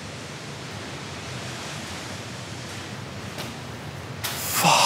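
Steady rushing background noise, with a short, louder breathy sound near the end.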